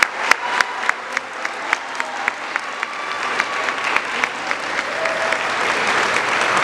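Audience applauding, with one nearby person's claps standing out at about three a second in the first couple of seconds.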